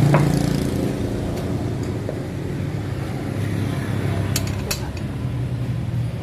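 Honda Scoopy scooter engine running at a steady idle with its CVT reassembled, with two sharp clicks a little past the middle.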